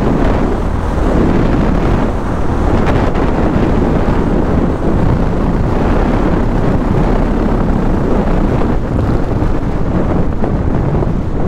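Heavy wind buffeting on the microphone of a motorcycle at highway speed, with engine and road noise underneath. Steady throughout, with no breaks.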